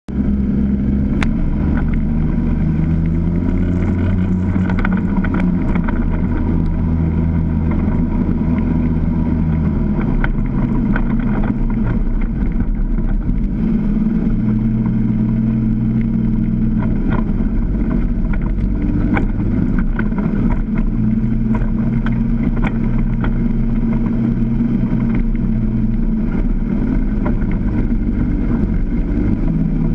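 Side-by-side UTV's engine running steadily on an off-road trail, its note shifting a few times as the throttle changes, with occasional sharp knocks.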